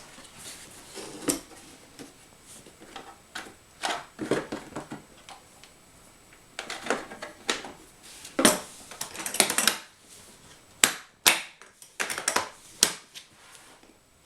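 Unboxing handling noise: packaging rustling, with scattered clicks and knocks from the tool kit being handled and a quick run of sharp clicks near the end.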